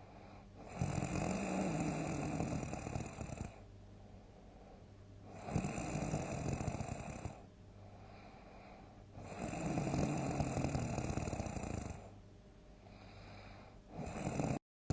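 A sleeping person snoring loudly: four long snores about every four seconds, with quieter breathing between them. The sound cuts out completely for a moment right at the end.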